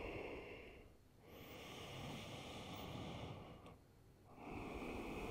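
A person breathing slowly and audibly, long breaths with short pauses about a second in and about four seconds in.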